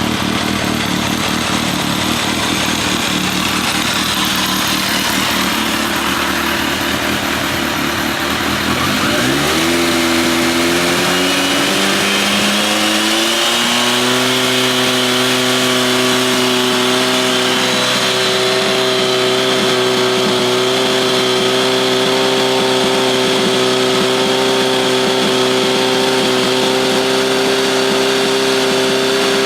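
Kawasaki ZRX1200 DAEG inline-four exhaust through an MH Asano titanium-carbon slip-on muffler. It idles, is revved up in steps starting about nine seconds in, and is then held at a steady, higher engine speed.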